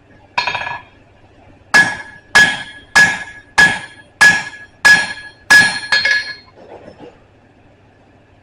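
Blacksmith's hammer blows on an anvil, ringing with each strike: a single blow, then a steady run of eight blows about two-thirds of a second apart.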